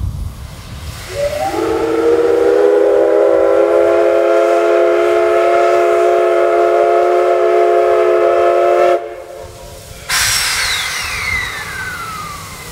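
The steam whistle of the JNR Class C56 steam locomotive sounds one long chord of several notes, sliding up into pitch as it opens, and is held for about seven seconds before cutting off: a departure whistle. About a second later a loud hiss of steam starts suddenly, with a thin tone falling in pitch through it, and slowly dies down.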